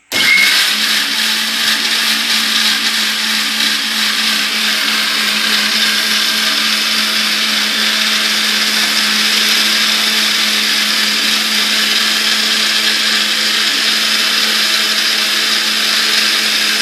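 Butterfly Matchless mixer grinder's motor switched on and running at a steady pitch, grinding the contents of a jar locked onto its base.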